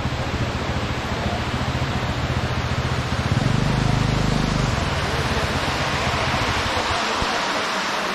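Steady rushing noise with the low hum of a scooter engine underneath, and the hum dies away about seven seconds in.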